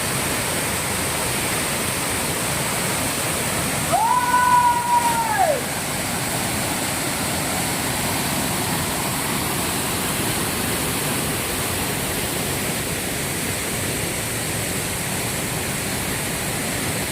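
Steady rush of the Pippalabhadra waterfall. About four seconds in, a single drawn-out call rises, holds for about a second and a half, then drops away.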